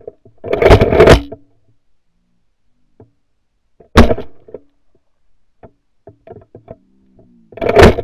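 Pump-action Mossberg 500 .410 shotgun being fired at doves: a single sharp shot about four seconds in. Clattering bursts of the pump action being worked come soon after the start and again near the end.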